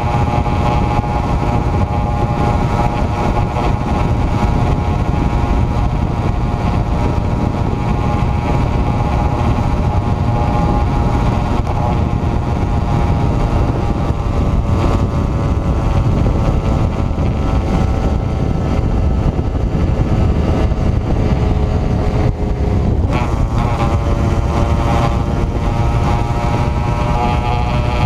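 1988 Yamaha RD135Z two-stroke twin running at steady cruising speed while the motorcycle is ridden, with wind rush on the rider's camera microphone. About three-quarters of the way through, the engine note dips briefly and then picks up again.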